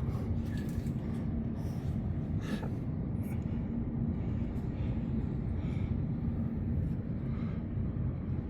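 Steady low background rumble with a constant low hum, broken by a few faint clicks.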